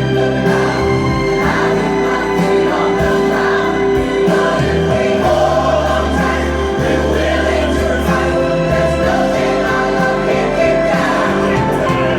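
Soul-jazz song playing loudly and steadily through a home-built speaker system, with a choir of backing vocals over sustained chords and a bass line.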